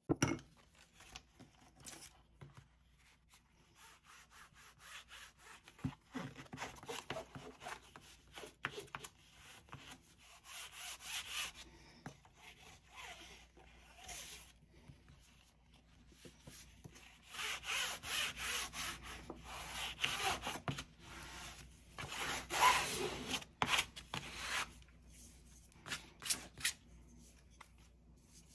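A bone folder rubbing newly glued bookcloth down onto book board in repeated scraping strokes, pressing the cloth into the hinge groove, with a single sharp knock at the very start.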